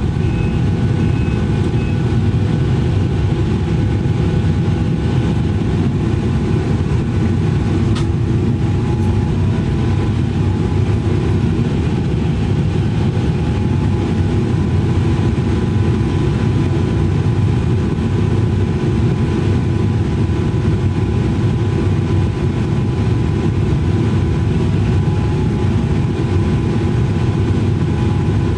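Case excavator's diesel engine running steadily, heard from inside the cab, with a faint steady whine over the low rumble as the boom lowers a heavy boulder into a trailer. A single light click about eight seconds in.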